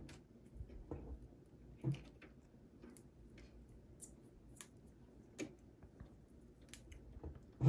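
Scattered faint clicks and light knocks of a SATA power splitter cable and its plastic connectors being handled and plugged in inside a desktop PC case, with a soft knock about two seconds in and a louder knock at the very end.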